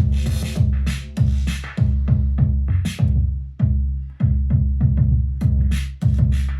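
Arturia DrumBrute Impact analog drum machine playing a rhythmic pattern: heavy booming kick and pitched bass tones under noisy hi-hat and cymbal hits. The high cymbal hits thin out in the middle and come back near the end.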